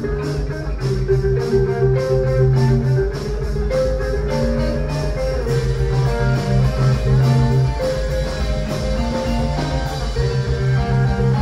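Live rock band playing: electric guitars picking melodic lines over sustained electric bass notes and a drum kit.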